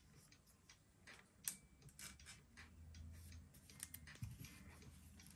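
Faint scattered clicks and rustles of trading cards being handled and slid into plastic sleeves, with a sharper tap about a second and a half in and again near the four-second mark.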